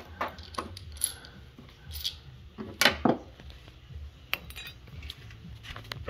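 Small metal parts clinking and tapping as they are handled: scattered sharp clicks, the loudest two close together about three seconds in.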